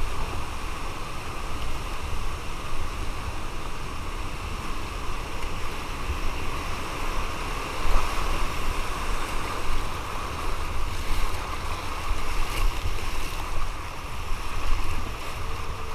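Whitewater rapids rushing steadily around a kayak running downriver, with a heavy low rumble underneath.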